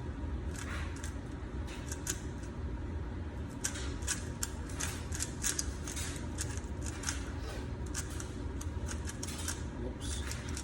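Rubik's Cube layers being turned fast, a rapid, irregular run of plastic clicks and clacks over a low steady hum.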